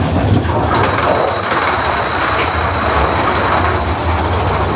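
Big Thunder Mountain Railroad mine-train roller coaster rolling along its track: a steady rumble and rushing noise, with a thin high whine that comes in about a second in.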